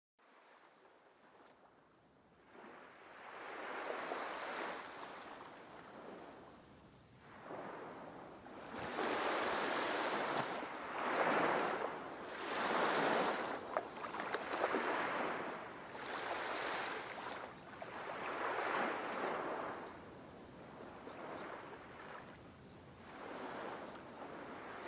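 Sea waves breaking and washing in, surging and fading every couple of seconds.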